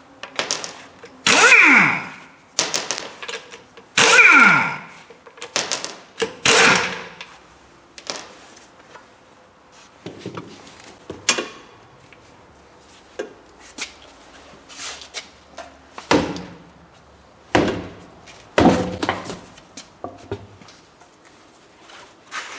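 A series of heavy thumps, the loudest each trailed by a falling ring, over the first seven seconds or so, then sparser, quieter knocks and clicks.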